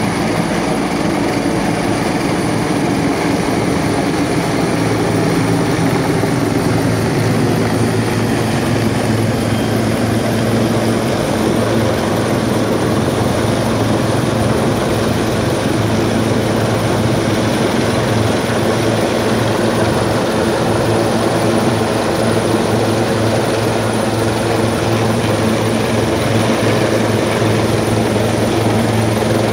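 Rescue helicopter hovering close overhead, its rotor and engine making a loud, steady drone that grows a little louder in the first few seconds as it holds position to winch up a stretcher.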